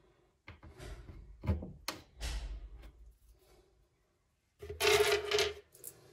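Rubbing and scraping with light knocks of a hand on a melamine cabinet panel, in several irregular bursts; the loudest, longest scrape comes about five seconds in.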